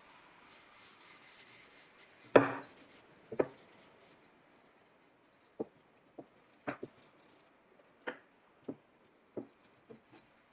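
Faint rubbing, then a series of short, light knocks and taps at irregular intervals, the loudest about two and a half seconds in.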